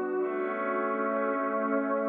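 Soft instrumental background music of long, held tones with a slow, steady, ambient feel.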